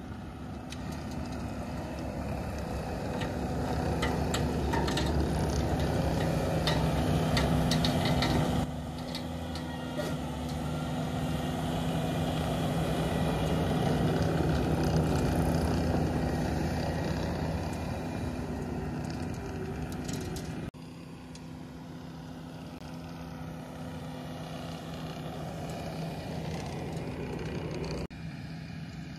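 Skid-steer loader's engine running under load, driving a hydraulic soil conditioner attachment, with scattered clicks and rattles about four to eight seconds in. The sound changes abruptly three times, and the louder stretches come in the first half.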